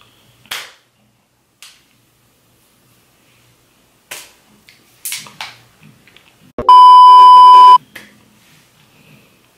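A loud, steady, single-pitch beep lasting about a second, a censor bleep, about two-thirds of the way in. Before it come a few short, quiet sounds.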